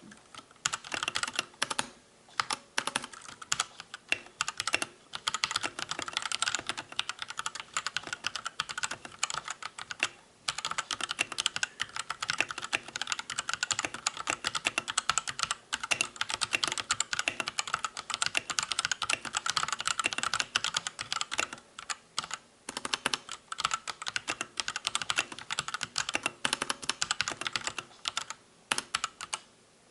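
Drevo Gramr V2 mechanical keyboard being typed on quickly and continuously in a typing test: a dense stream of key clicks with a few brief pauses.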